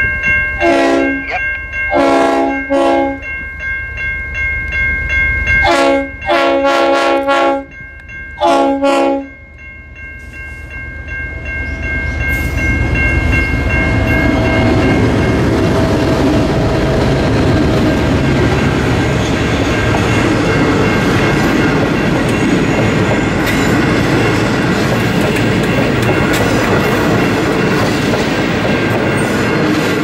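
V/Line N-class diesel locomotive N457 sounding its multi-note horn in a series of blasts over the first nine seconds, one of them broken into quick toots. The locomotive and its passenger carriages then pass close by, building to a loud steady rumble of wheels and rails with clicking over the rail joints.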